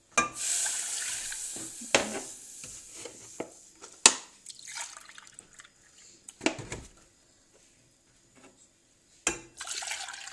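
Milk being poured from a cup into a pan: a splashing pour at the start and again near the end, with a few sharp knocks in between.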